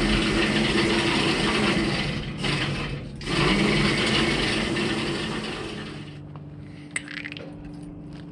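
Electric hose reel on a self-service aviation fuel pump rewinding the fuel hose: a loud motor whir that stops briefly about two and a half seconds in and starts again, then fades to a quieter steady hum after about six seconds. There is a single click about seven seconds in.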